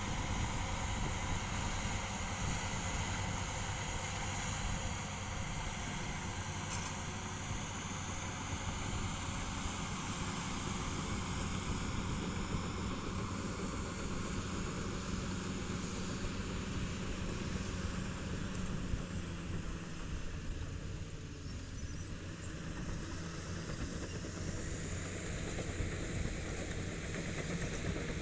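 Komatsu D65P bulldozer's diesel engine running steadily as the machine works, easing off briefly about three-quarters through.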